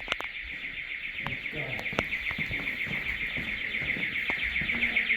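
Building intruder alarm sounding on and on, a high, fast-warbling tone, with a few light knocks over it.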